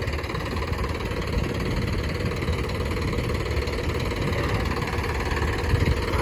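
A tractor's diesel engine idling steadily.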